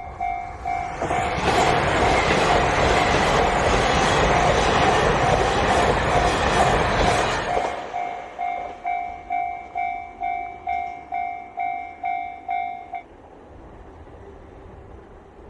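Railroad crossing warning bell pulsing steadily while a KiHa 261 series diesel limited express train rushes through the crossing for about six seconds. After the train has passed, the bell keeps ringing and then stops abruptly near the end.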